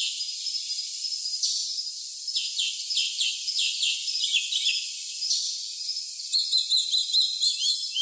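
Crickets chirping steadily, with songbirds singing over them in short falling notes and, from about three-quarters of the way in, a quick run of repeated notes. Everything below a high pitch is filtered out, so the sound is thin and bright.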